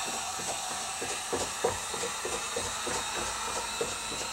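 Heat gun blowing with a steady hiss, drying the top edge of freshly applied window tint film on a car door glass. Faint soft scuffs of a towel-wrapped card pressed along the glass.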